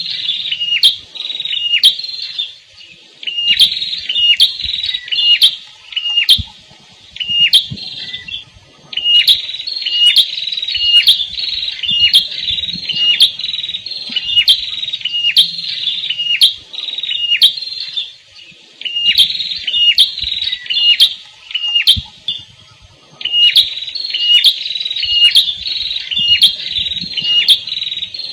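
Prenjak kepala merah (a small prinia-type songbird) singing: loud, rapidly repeated sharp high notes at about two a second, in bouts broken by brief pauses.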